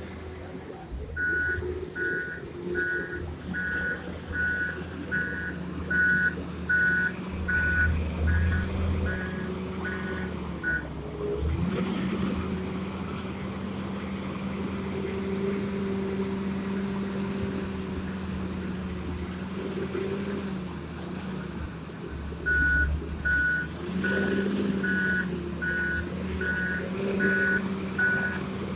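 Komatsu WA320 wheel loader's diesel engine running, with its reverse alarm beeping about twice a second as it backs up: a run of beeps for about ten seconds, then again from about three quarters of the way through.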